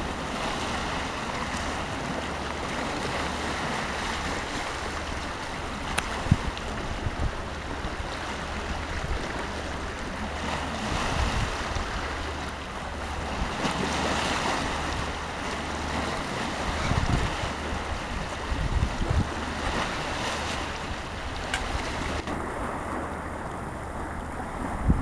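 Sea surf washing steadily, with wind buffeting the microphone in low rumbling gusts at several points. A sharp click comes about six seconds in.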